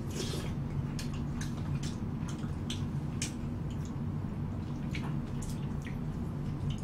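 Mukbang eating sounds picked up close: scattered small wet clicks and smacks, a few a second, from chewing braised chicken and utensils touching plastic cups, over a steady low hum.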